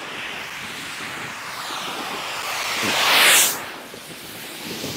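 Steady rush of wind and snow hiss as snowboards slide down a groomed run through snow-gun spray, swelling to a loud swoosh about three seconds in.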